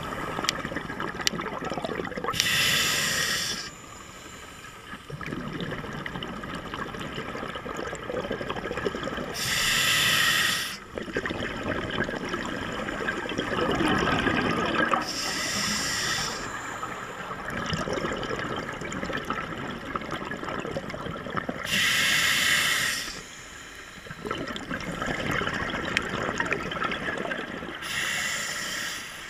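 Scuba diver breathing through a regulator underwater: five short hissing inhalations about every six seconds, each followed by a longer bubbling exhalation.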